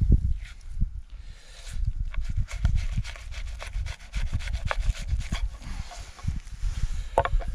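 Filleting knife slicing a redfin perch fillet away from the bones and skin and scraping on a wooden cutting board, in a quick run of short strokes.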